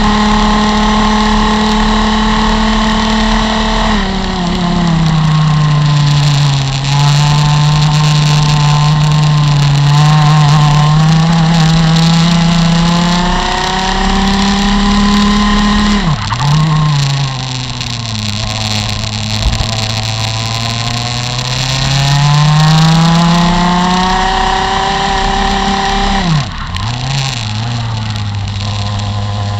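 Rotax MAX FR125 two-stroke kart engine running hard on track. It holds high revs for the first few seconds, drops sharply about four seconds in as the kart slows, then winds back up. The revs fall off and climb again twice more, sharply around the middle and again near the end.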